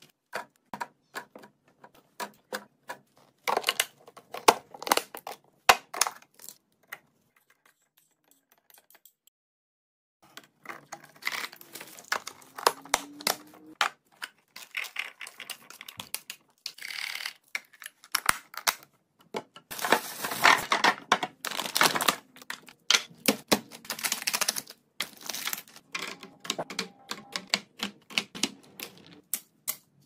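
Hard plastic food-storage containers and their parts clicking, tapping and rattling on a countertop in quick runs of light clicks, with blueberries tipped from a plastic colander into a perforated plastic produce keeper. There is a short quiet gap about a quarter of the way in.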